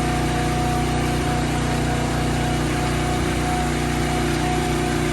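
Engine running steadily at a constant speed, with a low even hum and a thin steady whine above it.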